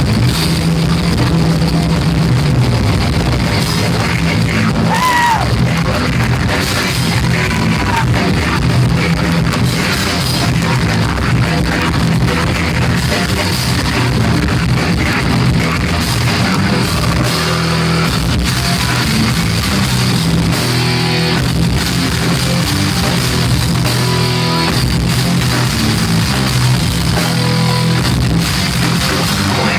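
Thrash metal band playing loud and continuous, with distorted electric guitars and a drum kit.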